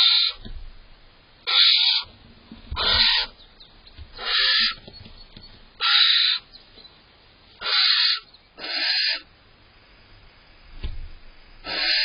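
Barn owl giving rasping hissing calls, each about half a second long, repeated roughly every second and a half with a longer pause near the end. The calls are the female's annoyance as the male eats the cached prey.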